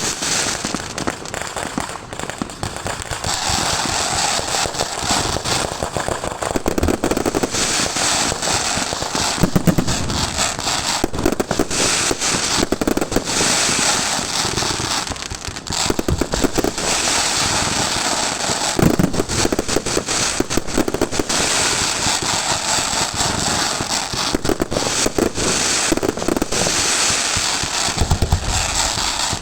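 Fireworks display: a dense, unbroken crackling of bursting fireworks, with heavier bangs now and then.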